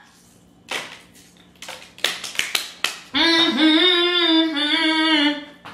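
A quick run of sharp clicks, then a woman's voice singing one long held note for about two and a half seconds.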